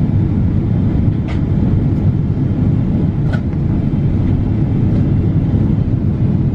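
Steady low rumble of an airliner cabin in motion, with a few faint clicks.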